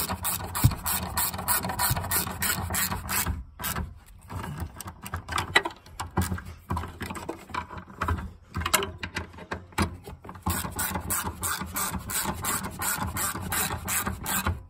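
Hand ratchet clicking in runs of quick strokes, about four clicks a second, as the bolts holding a fuel pump assembly into the fuel tank are run down and tightened. There are short pauses between the runs.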